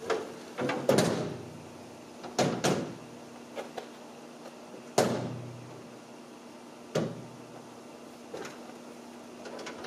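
Steel tailgate of a 1987 Toyota pickup clanking as it is raised and pushed against its latches, a series of separate metallic knocks with the loudest, sharpest bang about halfway through.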